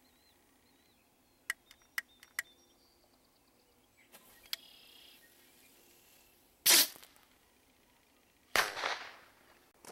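A Black Cat Silver Fox bottle rocket fired from a homemade PVC-pipe launcher. The Aimflame lighter trigger clicks three times, the fuse fizzes briefly, and the rocket leaves the tube with a loud whoosh. About two seconds later comes a sharp bang that fades out, the rocket's report.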